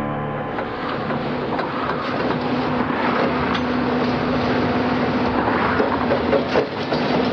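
Heavy demolition excavator running under load with a steady engine drone, and a few sharp knocks and cracks as it breaks up an old concrete road deck.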